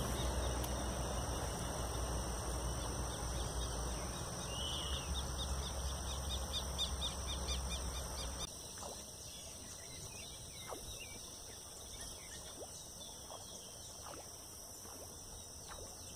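Outdoor pond-side ambience: a steady high insect whine with bird chirps and a rapid ticking trill, over a low rumble that drops away abruptly about halfway through.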